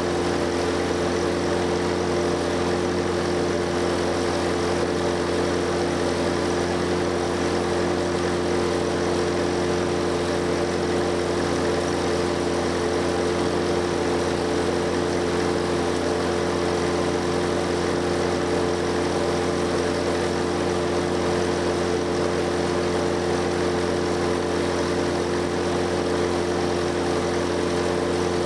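1963 Lincoln SA-200 engine-driven welder, its four-cylinder Continental gasoline engine running steadily under welding load, with the steady hiss of a stick-welding arc burning 3/16-inch 7024 Jet-Rods. The engine holds its speed without bogging down or missing, the sign of a healthy machine on high range.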